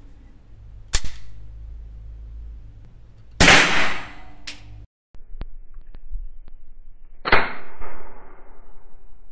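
Pieper-Bayard Mle 1909 .22 LR carbine being worked and fired: a sharp click about a second in, then loud reports about three and a half and seven seconds in. The second report is sharp and rings out for over a second in the range.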